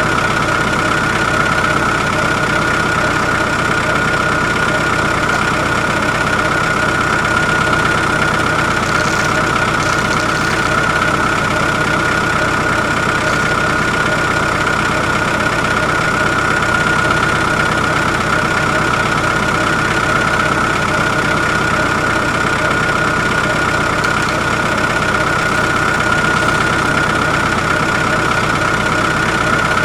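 A small motor running steadily with a constant high whine that does not change in pitch or loudness.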